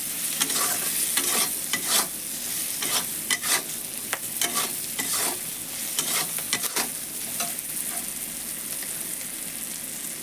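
Prawns and onions sizzling in oil in a kadai while a khunti spatula stirs them and strikes against the pan to cut the large prawns, with many sharp clacks. The clacks thin out after about seven seconds, leaving the steady sizzle.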